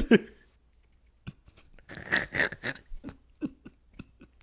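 Muffled, stifled laughter through a hand over the mouth: short breathy puffs, the main one about two seconds in, with scattered small clicks.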